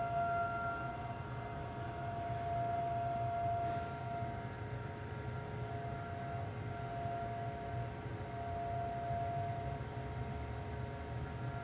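Rotating outdoor warning sirens sounding a steady tone during a siren test, swelling and fading as they turn. The strong overtones fade out about a second in, leaving a thinner, more distant-sounding tone.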